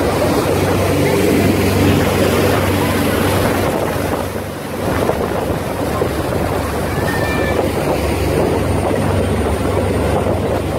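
Fishing boat's engine running steadily under way, with the rush of the churning wake and wind on the microphone.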